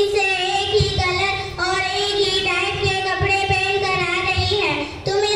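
A girl singing into a microphone, holding long notes with a slightly wavering pitch, with a short break about a second and a half in and another near the end.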